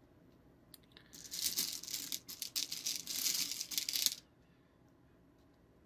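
Small hard candies rattling in a container for about three seconds, starting about a second in and stopping abruptly.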